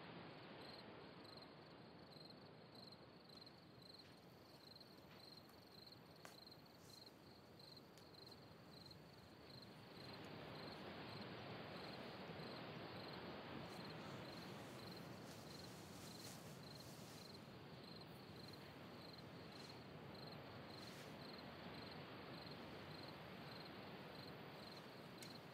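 Faint night ambience: crickets chirping steadily, about two chirps a second, over a soft hiss that grows slightly louder about ten seconds in.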